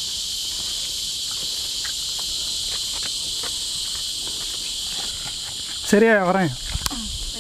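Steady, high-pitched chorus of insects buzzing without a break. About six seconds in, a person's voice gives a short call that falls in pitch.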